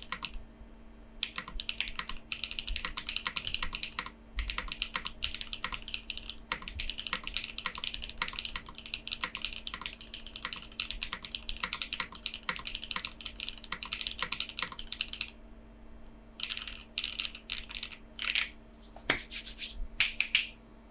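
Mechanical keyboard typing on a Haven TKL with Gateron Silyworks SLAY Type R switches and PBTFans Pyga PBT keycaps: fast, continuous keystrokes that stop about fifteen seconds in, followed by a few short runs and single louder keystrokes near the end.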